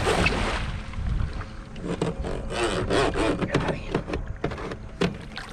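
A big blue catfish thrashing in a landing net at the side of a boat, splashing and churning the water, with scattered knocks and scrapes from about two seconds in.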